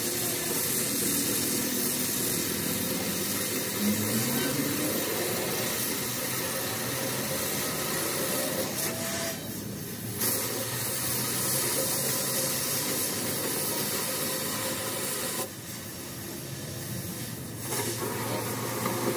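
Oxy-fuel cutting torch hissing steadily as it cuts around the welded spindle flange of a truck axle housing. The hiss thins out twice, briefly about halfway through and again for about two seconds near the end.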